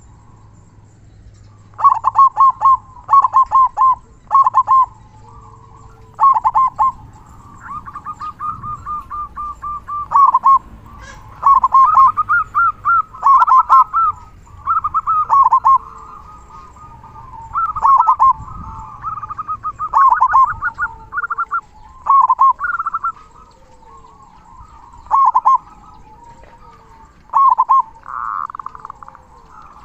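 Zebra dove cooing: repeated phrases of quick pulsed notes, each phrase a second or two long with short pauses between, starting about two seconds in.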